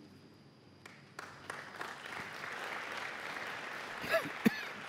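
Audience applauding, starting about a second in and building to a steady clapping, with a short spoken word near the end.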